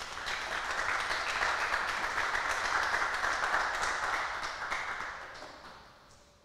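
Audience applauding at the end of a talk: many hands clapping together, starting at once, holding steady, then fading away over the last two seconds.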